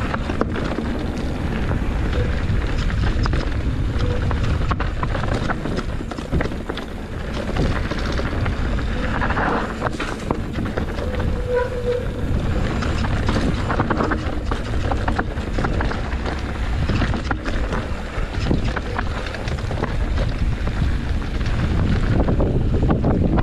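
Wind buffeting the microphone while riding a bike down a rough trail, with steady rattles and knocks from the bumps.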